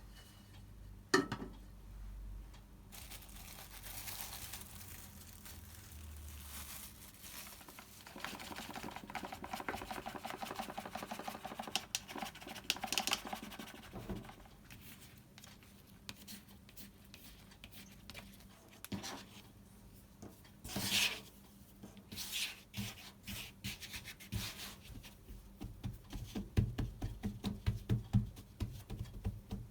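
Rubbing and scraping from preparing food by hand, with a few sharp knocks and a quick run of light taps near the end.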